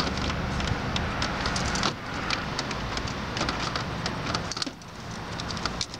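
Clicking and crackling of plastic wiring connectors and harness being pressed and worked loose from the back of a Ford Mustang factory radio, many small irregular clicks, with a low rumble for about the first two seconds.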